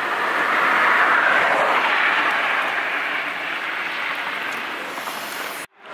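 Tyre and road noise of a vehicle passing on the highway, swelling about a second in and slowly fading, then cut off suddenly near the end.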